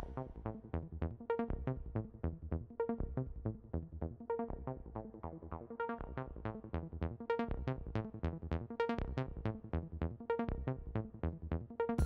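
Background electronic music: a steady, quick run of short, fast-fading notes, about four to five a second.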